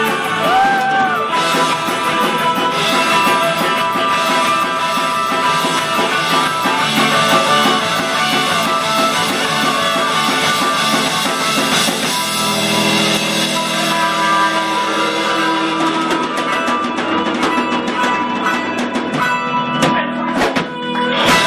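Live rock band playing an instrumental stretch with no singing: electric and acoustic guitars strummed over bass and drum kit. The texture shifts about halfway through, and a loud hit near the end closes the passage.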